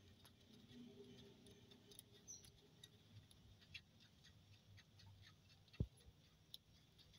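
Near silence: faint scattered ticks and clicks, with one dull low thump a little before six seconds in.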